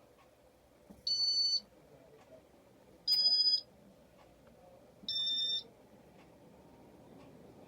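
Casablanca Victorian ceiling fan's control beeping three times, about two seconds apart, each beep about half a second long and at a slightly different pitch, as demo mode steps it from one mode to the next.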